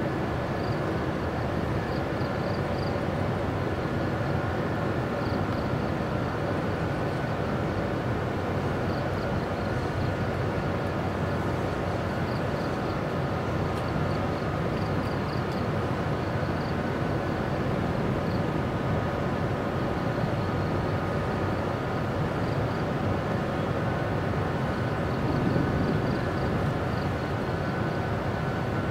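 45-ton electric locomotive hauling container flatcars slowly through a rail yard: a steady rumble with a few faint steady whining tones. Short high chirps come and go over it.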